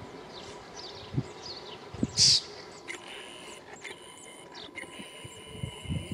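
Birds peeping: short, high, falling notes, a few a second, that die away about three seconds in. A single short, harsh, louder rasp comes about two seconds in, and a faint steady high whine follows.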